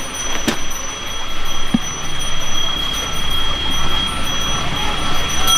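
A hand bell rung continuously in a Balinese Hindu rite, giving a steady high ringing of several sustained tones. A short knock and a soft thud sound in the first two seconds.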